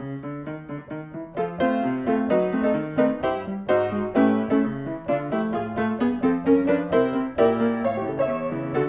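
Background music played on piano, a quick steady stream of notes.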